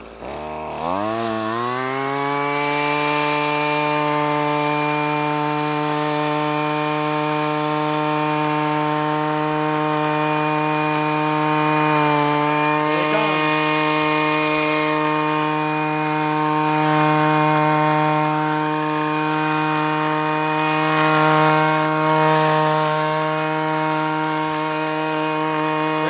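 Weed eater (string trimmer) engine revving up from idle, its pitch climbing over the first two seconds, then held at high, steady revs with a brief dip about halfway through. This high drone is what draws Brood X cicadas to land on the operator, who takes it to sound like their mating call.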